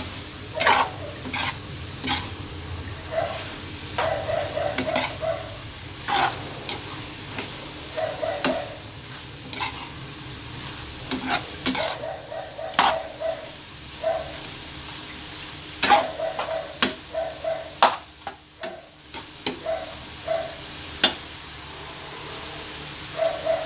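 A metal spoon stirring sliced pork and liver in a frying pan, scraping and clicking irregularly against the pan over a steady sizzle of frying.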